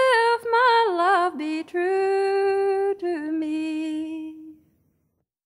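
A woman's solo singing voice finishing the closing refrain of a traditional ballad, with quick ornamented turns, then a long held low final note that fades out about four and a half seconds in.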